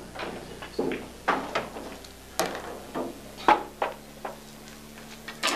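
Scattered sharp knocks and clicks around a pool table, then near the end a sharp crack as the cue tip strikes the cue ball.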